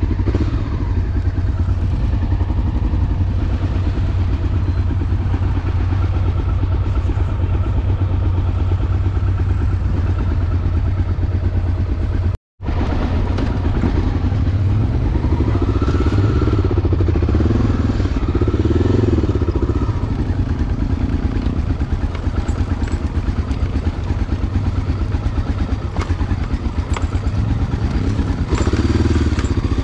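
Enduro motorcycle engine running while riding, its pitch rising and falling with the throttle for a few seconds past the middle. The sound cuts out for an instant about twelve seconds in.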